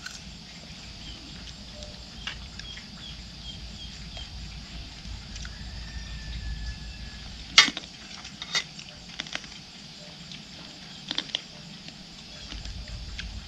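Steady high-pitched insect chirring in the background, with a few sharp clicks, the loudest about halfway through and a quick pair near the end.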